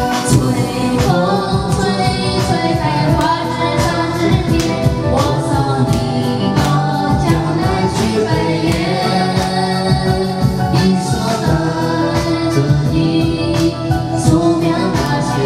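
Karaoke singing: a woman sings into a microphone over a backing track with a steady beat, and other voices sing along.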